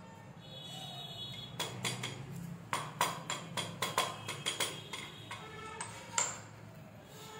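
Mint leaves being pounded with a small stone pestle in a small dish: a quick run of sharp knocks, about four a second, starting about a second and a half in and stopping about a second before the end.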